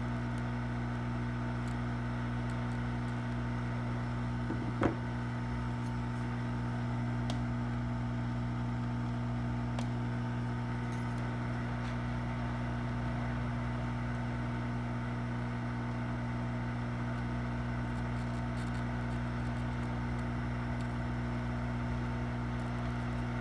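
Hot air rework station blowing hot air steadily with a low hum, heating a USB port's solder joints to desolder it from a laptop board. One sharp click about five seconds in.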